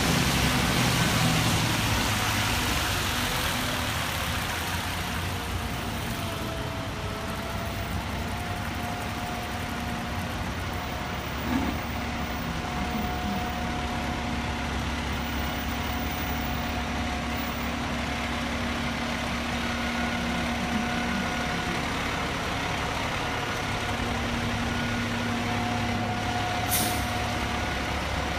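Fire engine's diesel engine running at low speed, louder in the first few seconds as it passes close, then idling steadily. A short air-brake hiss comes near the end.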